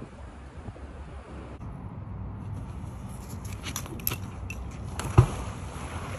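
A fishing magnet splashes into a pond with one sharp plop about five seconds in. Before it come a few light clicks and rustles from the rope being handled, over a low wind rumble on the microphone.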